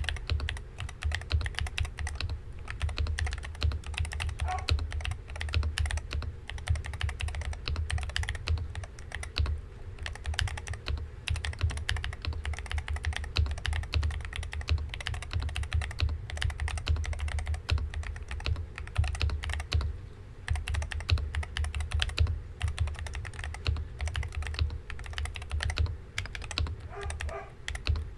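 Fast typing on a MAD60HE keyboard with magnetic switches: a dense, irregular clatter of keystrokes with a few brief pauses.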